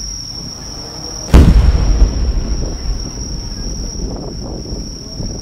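A single deep boom from a large aerial firework shell (a shakudama, about 10-inch) bursting, arriving about a second in, then a rumbling echo that dies away over a couple of seconds. Crickets trill steadily at a high pitch throughout.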